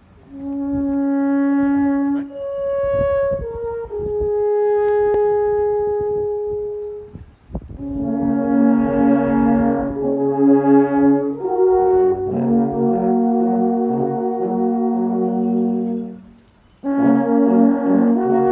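Alphorns playing: a slow melody of long held notes on one horn line, then from about eight seconds several alphorns sounding held chords together, breaking off briefly near the end and starting again.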